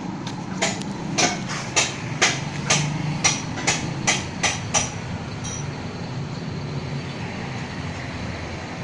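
Car radiator cooling fan running with a steady rough growl ('ngorok'), a noise that calls for checking the fan and its motor. Over the first five seconds a run of about ten sharp knocks, about two a second, sounds over it, then stops.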